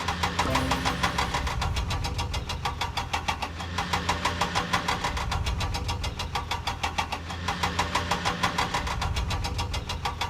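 Cartoon vehicle engine sound effect running with a rapid, even chugging pulse over a low hum.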